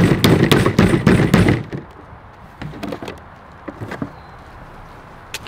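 A potato being forced through a handheld plastic fry cutter: a dense burst of crunching and clacking for about the first second and a half. Then scattered light knocks as the cut pieces and the cutter are handled on a plastic table.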